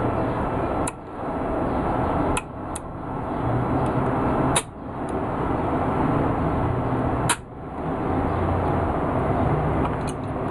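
Sharp metallic clicks of an IZh-27 over-under shotgun's exposed hammer and trigger mechanism being worked by hand, several of them a second or more apart, over a steady background noise.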